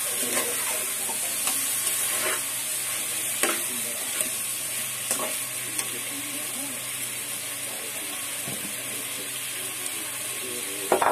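Curry with vegetable and fish pieces being stirred in a pot over a steady sizzle. The spatula knocks against the pot a few times, with a louder clatter near the end.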